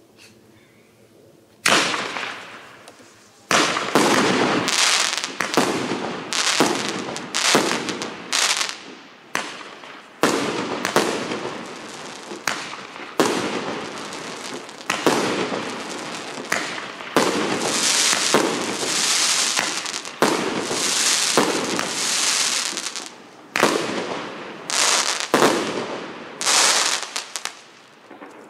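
Liuyang Starlight 916B 16-shot, 1.2-inch fireworks cake firing. After almost two seconds of quiet, a quick series of sharp bangs follows, about one a second, each trailing off in a crackling hiss as the stars burst, and it fades out near the end.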